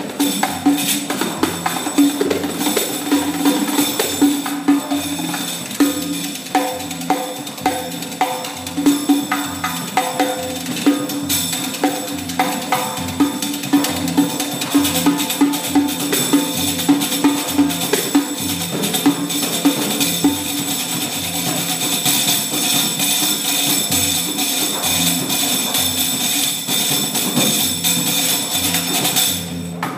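Small hand-held frame drum with metal jingles in its rim, played solo in a fast, unbroken stream of strokes: low strokes on the drum head under a constant jingle rattle. From about twenty-two seconds in, the jingles run together into a more continuous shimmer.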